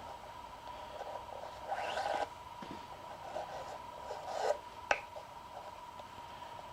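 Nylon paracord being handled and pulled through loops while a bracelet is woven: short rustling scrapes about two seconds in and again near four and a half seconds, then a sharp click, over a steady faint high tone.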